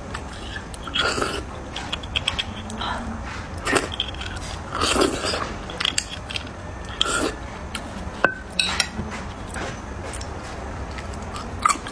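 Close-miked eating of red-braised beef bone marrow: a few short, wet mouth noises of slurping and chewing, with small clicks and scrapes as a thin stick digs the marrow out of the bone.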